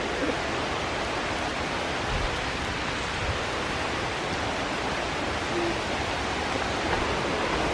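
Steady, even rushing of flowing water.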